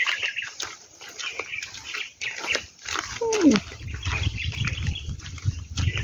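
Animal calls, with one cry about three seconds in that falls steeply in pitch, over a low rumble in the second half.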